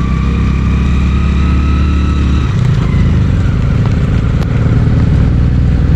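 Motorcycle engine running at low speed, with the note changing about two and a half seconds in, as the bike climbs a snowy road.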